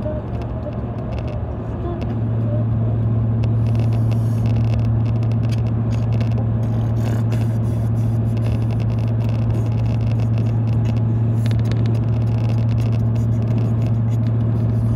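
Steady low engine and road drone heard from inside a moving car, with a constant low hum that grows louder about two seconds in and then holds even.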